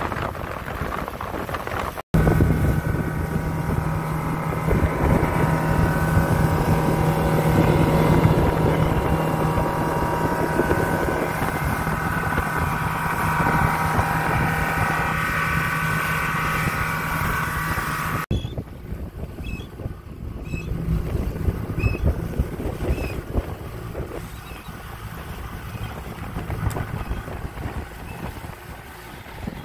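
Motorboat engine running steadily under way, with water rushing and wind on the microphone. It starts abruptly about two seconds in, after a short stretch of wind, and drops away at about eighteen seconds, leaving quieter wind and water noise.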